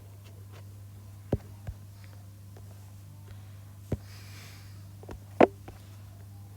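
A few short, sharp clicks or taps, the loudest about five and a half seconds in, over a steady low hum. A brief soft hiss, like a breath, comes near the middle.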